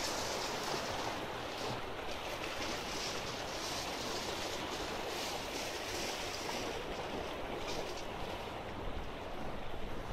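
Small sea waves breaking and washing over the rocks of a jetty, a steady surf wash.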